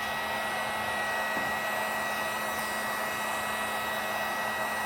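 Electric heat gun running steadily, a constant rush of blown air with a faint steady motor whine, as it heats a heat-shrink BOA hose clamp.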